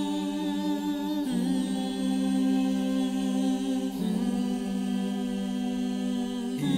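Slow background music of long held chords that change about a second in, around four seconds in, and again near the end.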